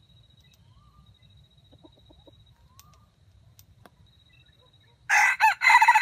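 A red junglefowl rooster starts crowing about five seconds in: a couple of short broken opening notes running into a longer held call.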